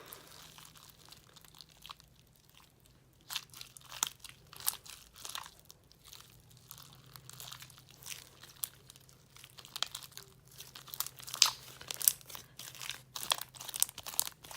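Homemade slime, activated with laundry detergent, being kneaded and pulled in one hand: irregular sticky clicks and crackles as it pulls off the fingers, coming more often toward the end.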